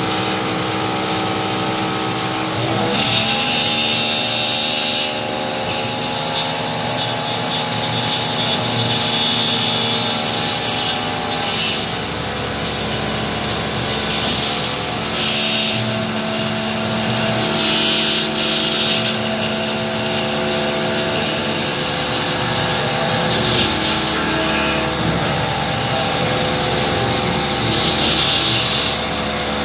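Homemade CNC milling machine cutting a metal plate with a small end mill under flood coolant: a steady machine whine of several tones that rises in pitch about three seconds in and shifts again around twelve seconds, with high-pitched cutting noise coming and going as the cutter works.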